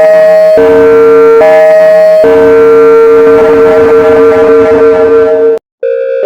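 Synthesized Emergency Alert System alarm tone: two steady multi-tone chords alternate about every 0.8 s, then one chord is held for about three seconds and cuts off suddenly. After a brief gap a different, higher alarm tone starts near the end.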